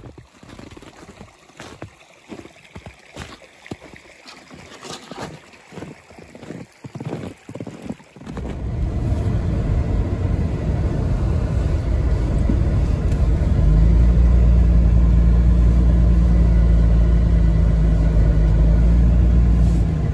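Scattered clicks and knocks, then about eight seconds in a vehicle engine comes in and runs, settling into a loud, steady low drone from about fourteen seconds in.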